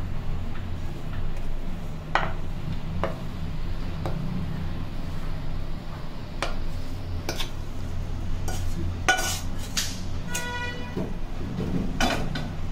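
Spatula scraping and knocking against a nonstick pan and a stainless steel bowl as thick, crumbly ladoo mixture is scraped out, in scattered separate strokes. A short ringing tone sounds about ten seconds in, over a steady low hum.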